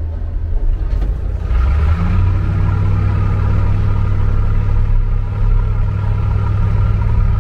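Diesel engine of a 4x4 expedition truck pulling away and running steadily under load, getting louder about a second and a half in.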